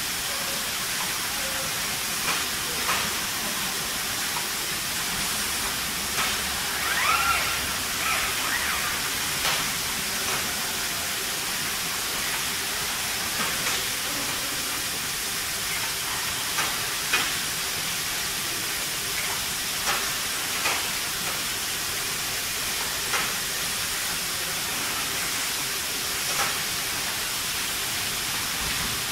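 Robotic resistance spot welding on a car body: about a dozen short, sharp cracks at irregular gaps as the weld guns fire, over a steady hiss of the factory.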